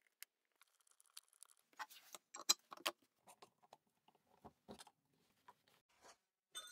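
Faint, scattered clicks and light scrapes of small parts being handled while the brush holder wires are fitted during reassembly of a Makita 9005B angle grinder, with a cluster of sharper clicks about two to three seconds in.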